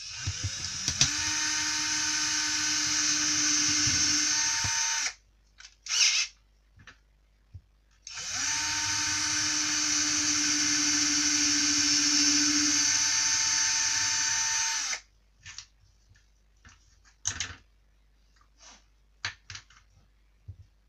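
Electric drill-driver with a 3 mm metal bit drilling holes through a thin plastic headlamp strap mount. It runs in two spells of about five and seven seconds, each spinning up to a steady whine, and is followed by a few light handling clicks and taps.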